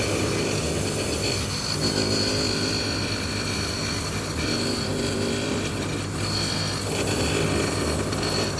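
Metal lathe running while a cutting tool bores out the inside of a spinning hexagonal metal part, throwing sparks. The sound is a steady machine hum with a faint high whine from the cut that comes and goes.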